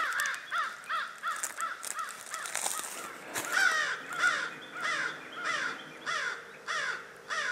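Footsteps crunching through dry leaf litter at a quick walk, about two steps a second. Throughout, a bird calls in a quick, even series of short rising-and-falling notes, three or four a second.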